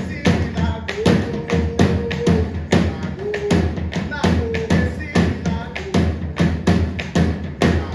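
Live percussion music: a fast, steady beat of sharp strikes, several a second, with short held notes sounding over it now and then.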